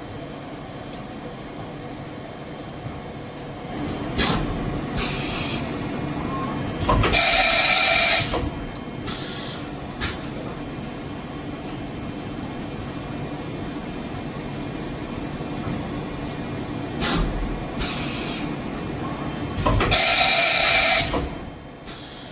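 Kitamura MyCenter 4XiD CNC vertical machining center running with a steady machine hum. Sharp clicks and two loud, noisy bursts of about a second each repeat as a cycle, one burst about a third of the way in and one near the end.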